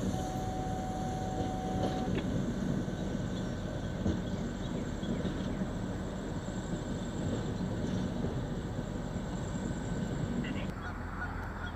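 Steady rumble of a train rolling by, with a single steady tone lasting about two seconds at the start.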